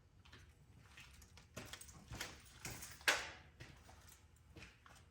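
Handling noise as the protective cover is pulled off a new lower control arm: a run of rustles and knocks, the loudest and sharpest about three seconds in.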